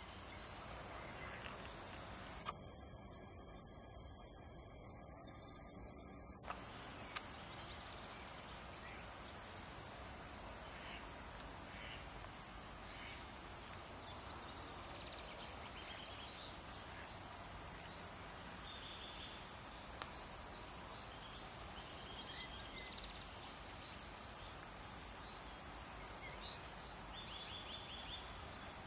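Songbirds singing over a steady background noise. A whistled phrase that starts high, drops, then holds one level note for about a second recurs every few seconds, with shorter chirps and trills between.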